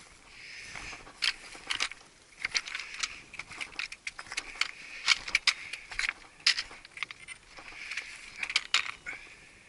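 Boots stepping across loose rock scree: stones clinking and knocking against each other in quick, irregular sharp clicks, some loud, over a soft hiss.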